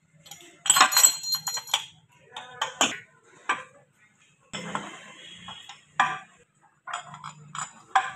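Steel gears and gearbox parts clinking and knocking as they are handled and fitted onto the countershaft inside an open tractor gearbox casing. There is a loud cluster of ringing clinks about a second in, then scattered knocks and clinks.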